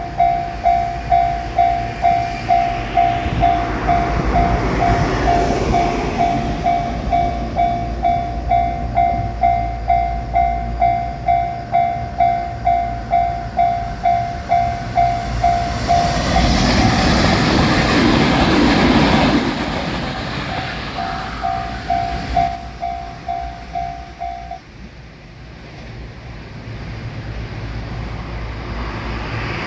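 Japanese level-crossing warning bell clanging at about two strikes a second while a JR Shikoku 8000-series limited express electric train passes. The train is loud for a few seconds past the midpoint. The bell stops a few seconds after the train has gone by.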